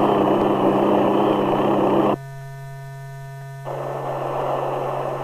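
Helicopter noise in an audio demonstration of noise reduction: a loud stretch for about two seconds that stops abruptly, then, after a short gap, the same kind of noise coming back noticeably quieter. A standard helicopter is being set against the quieted one. A steady hum lies under it all.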